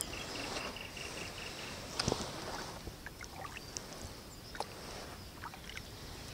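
Quiet paddling on a river from an inflatable Red River Solo 245 packraft: small irregular splashes and drips of water, with a soft knock about two seconds in.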